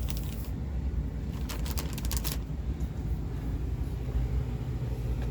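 Plastic bag and styrofoam packing being handled, giving short crinkling and scraping noises in two bursts, one at the start and one about two seconds in, over a steady low hum.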